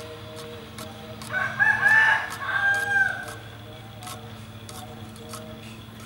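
Cleaver knocking through red chillies onto a wooden chopping board, about two chops a second. A rooster crows once, loudly, about a second and a half in, for nearly two seconds.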